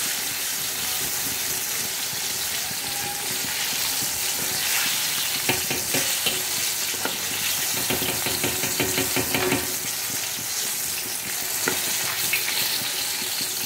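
Flour-coated chicken pieces deep-frying in hot oil in a wok: a steady sizzle with repeated bursts of crackling as a utensil turns the pieces and lifts them out.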